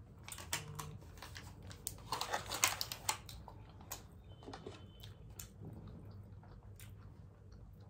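Aluminium foil takeaway trays crinkling and rustling as food is picked out of them, mixed with the small clicks and chewing noises of eating. The rustling is busiest about two to three seconds in.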